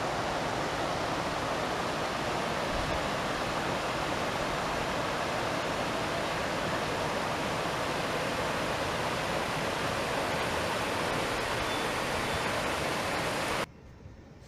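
Rushing water of a shallow stream running fast over rocks, a steady hiss that cuts off abruptly near the end.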